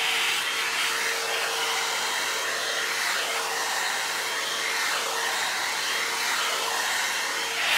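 Head Kandy Commitment Issues hot-air blow dry brush running steadily as it is drawn through damp hair: a constant rush of air with a steady motor whine.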